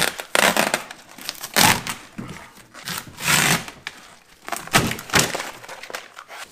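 Vacuum-bagging film, flow media and peel ply being ripped and peeled off a cured composite part, several loud tearing pulls with crinkling plastic in between. It is the debagging of the part after its oven cure.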